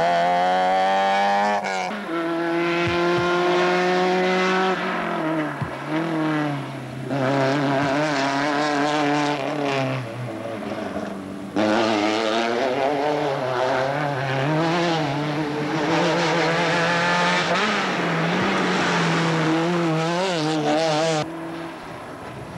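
Rally car engines revving hard as the cars race past in turn, the pitch climbing and dropping quickly with gear changes and lifts for corners. The sound switches abruptly from one car to the next twice.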